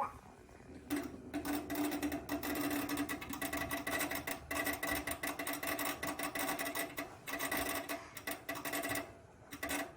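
Microwave oven running: a steady buzzing hum with rapid rattling, starting about a second in and stopping near the end.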